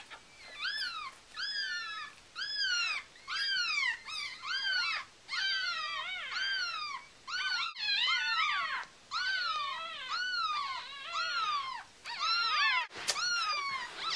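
Newborn Yorkshire terrier puppy crying: a steady run of high squeals, each rising and then falling in pitch, about one or two a second.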